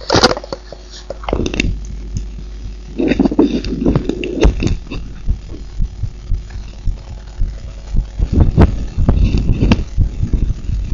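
A woman's heartbeat, beating strongly, with repeated low thumps. Bursts of rubbing noise come in at the start and again about three seconds in.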